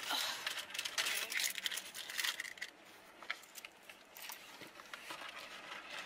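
Rustling and light clicks and knocks of a person settling into a car seat and handling her belongings, busiest in the first half and dying down to a faint rustle with the odd click.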